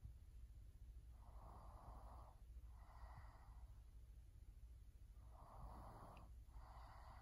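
Faint, slow breathing: two breaths, each a soft in-breath followed by an out-breath, about four seconds apart.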